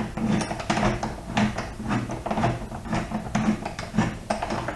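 Socket wrench ratcheting on a 12 mm bolt as it is loosened: a run of sharp metallic clicks, about three or four a second.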